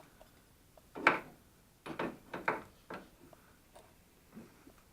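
Irregular knocks and clicks of metal steering parts and hand tools being handled and fitted while a tie rod is installed, the loudest about a second in and a quick run of them around two to three seconds in.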